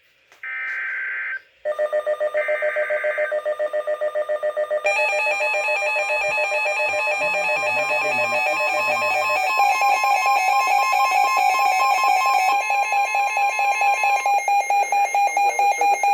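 NOAA Weather Radio SAME alert header: short buzzy bursts of digital data tones, the last overlapping the start of a Midland weather radio's alert alarm, a loud, rapidly pulsing multi-tone beeping that grows fuller about five seconds in. Together they signal an incoming severe thunderstorm warning.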